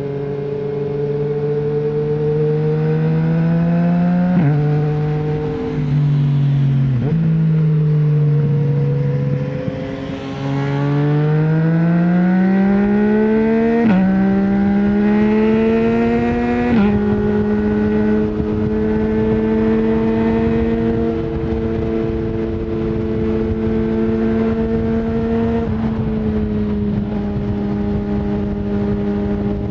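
Yamaha MT-09 three-cylinder engine through an Akrapovic full-system exhaust, accelerating through the gears. The pitch climbs and drops sharply at each shift, then holds nearly steady at a constant cruising speed from about halfway through.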